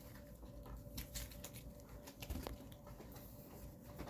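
Faint handling of trading cards: scattered light clicks and small taps, over a faint steady hum.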